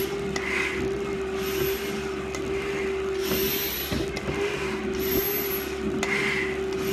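Hard breathing through a full-face respirator mask, a hissing breath about once a second, some with a faint high squeak, over a steady low hum.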